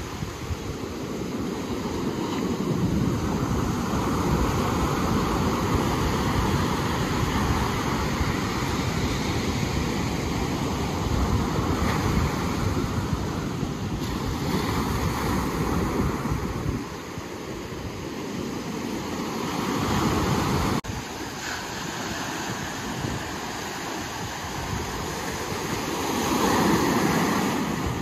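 Ocean surf washing in slow swells that rise and fall every few seconds, with wind rumbling on the microphone. The level drops suddenly about three-quarters of the way through.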